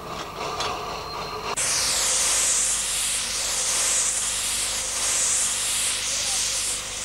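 Steam hissing from an eight-coupled forest-railway steam locomotive built 1951 in Reșița: a steady, loud hiss that starts suddenly about a second and a half in and holds without a beat.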